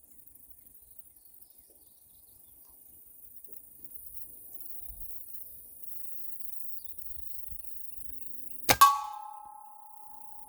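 .22 Benjamin Trail NP2 nitro-piston air rifle firing with a sharp crack, followed a split second later by a louder clang as the pellet strikes the steel helium tank. The tank rings on with a steady metallic tone for a couple of seconds.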